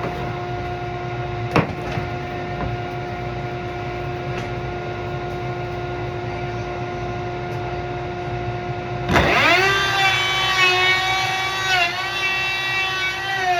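A steady machine hum with a couple of clicks, then about nine seconds in a motor starts, spins up quickly to a high running pitch and keeps running, its pitch dipping briefly now and then.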